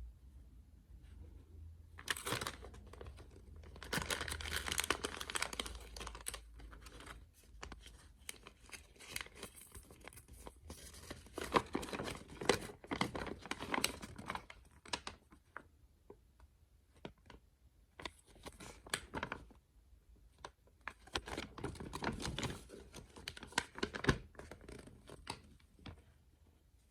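Small packaging bags being torn open and crinkled by hand. The crackling tearing and rustling come in several bouts, with short quiet gaps between them.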